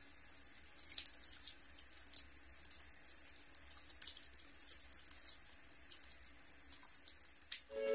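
Faint tap water running into a sink, with many small splashes and drips.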